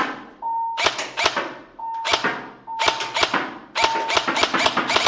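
Battery-powered HTA LVOA airsoft rifle firing, spaced single shots with sharp cracks and a short ring, then a quicker string of shots near the end. A short steady high beep sounds in several of the gaps between shots.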